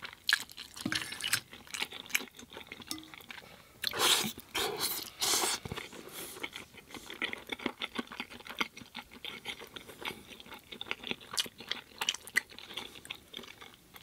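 Close-miked chewing of pasta with vegan sausage in sauce: irregular wet smacks and mouth clicks, with a few louder bursts about four to five and a half seconds in.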